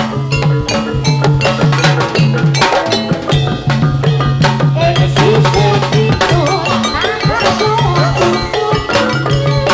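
Loud Javanese gamelan-style jathilan accompaniment played through a sound system: drums and struck metallophones in a fast, dense rhythm over a low note pulsing in a steady pattern.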